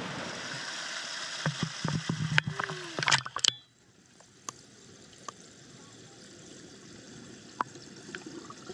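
Pool water sloshing and splashing with sharp clicks, then about three and a half seconds in the sound drops suddenly to a quiet, muffled hiss with occasional faint ticks, heard underwater.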